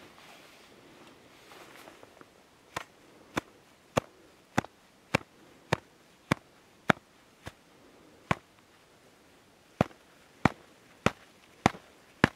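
A gloved hand tapping a shovel blade laid flat on top of an isolated snow column in an avalanche compression test. It makes sharp taps about 0.6 s apart: ten in a row, a short pause, then a second series begins. The second series is the next stage of the test, with taps from the elbow.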